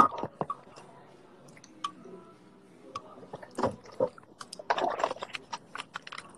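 Scattered close clicks and crackles right at the microphone, with a louder rustling burst just past halfway and another about five seconds in.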